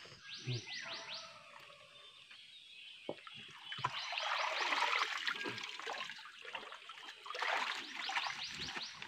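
Outdoor ambience of repeated high chirping trills, each a quick run of downward-sweeping chirps, recurring three times. Crackling, rustling footsteps through dry bamboo leaf litter are loudest about four to six seconds in.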